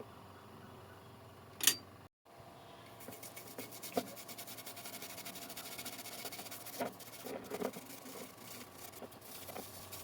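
Fast, steady scraping or rubbing, like a tool working over a surface, with a sharp click near the start and a few light knocks mixed in.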